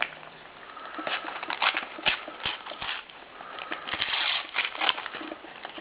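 Paper sticker packets and stickers being handled: irregular crinkling and rustling with small clicks as a packet is opened and the stickers are pulled out.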